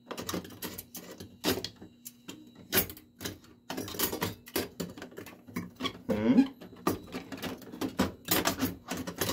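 A sheet-metal pinball ramp being dry-fitted by hand onto the playfield: irregular clinks, taps and scrapes of metal against metal.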